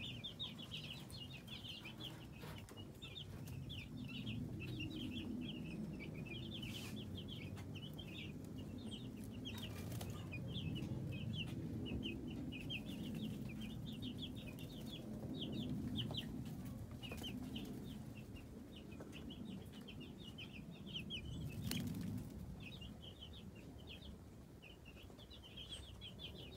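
A flock of young broiler chicks, about ten days old, peeping continuously: many short, high chirps overlapping without pause. Underneath is a low rumble, with a few sharp clicks.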